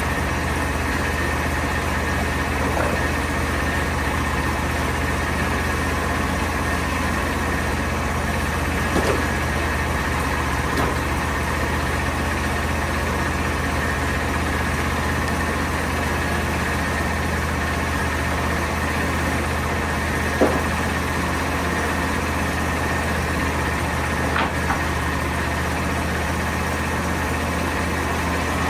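An engine idling steadily, with a few short knocks over it.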